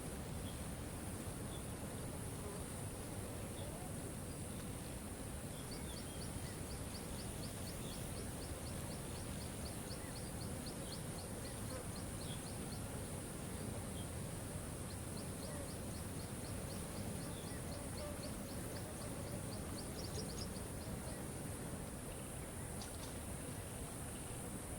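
Steady rush of a waterfall, with a constant high hiss of insects above it. Through the middle, a small bird or insect repeats a high, fast ticking call about four times a second in two long runs.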